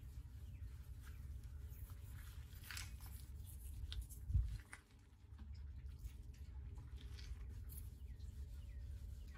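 Faint hand wet sanding with 1500-grit wet/dry paper rubbing on a bass boat's metal-flake finish, soft scrapy rubbing over a steady low rumble, with one dull thump about four seconds in.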